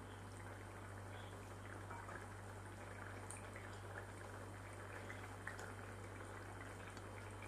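Okra and tomato curry with ground coconut simmering in a kadai: faint, steady bubbling, with a steady low hum underneath.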